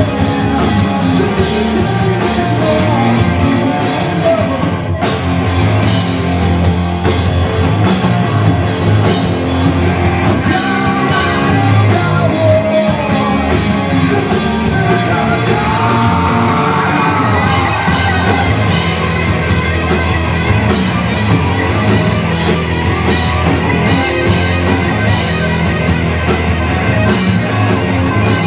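A rock band playing live: distorted electric guitars, bass guitar and a drum kit, with a lead singer's voice over them.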